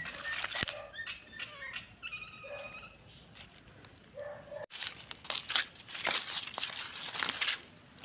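A cat gives a few short meows, then, after an abrupt cut about halfway through, dry leaves crackle and crunch under a cat's paws as it walks.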